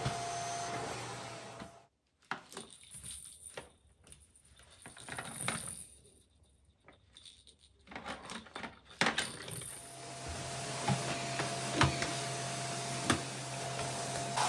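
Light clinks and knocks of small objects being handled. A steady appliance hum runs at the start, drops out after about two seconds and comes back near the end.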